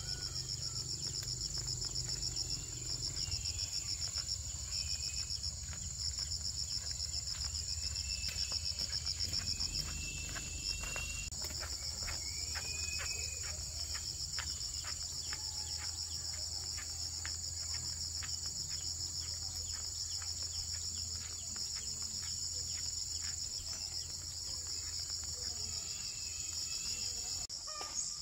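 Insect chorus: a loud, continuous high-pitched trill that pulses rapidly. A few short chirps come over it in the middle, along with a run of faint, regular ticks.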